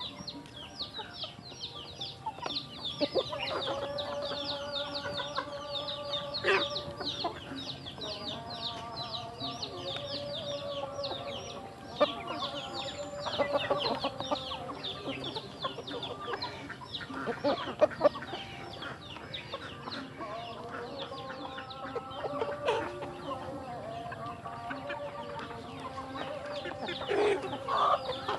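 Chickens feeding as a flock: constant fast, high peeping, with lower clucks and drawn-out calls of a second or so among them. A few sharp knocks stand out, the loudest about twelve and eighteen seconds in.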